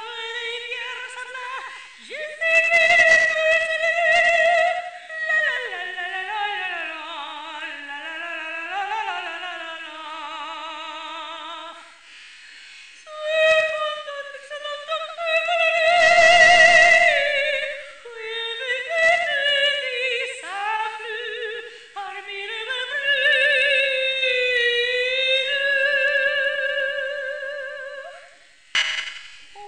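Opera soprano singing a melodic passage unaccompanied, holding high notes with a wide vibrato and dipping to lower notes in between, with a short break about twelve seconds in.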